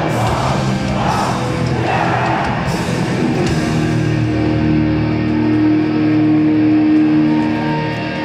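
Hardcore punk band playing live, loud: electric guitars and drums, with vocals over the first few seconds, then guitar chords held and ringing.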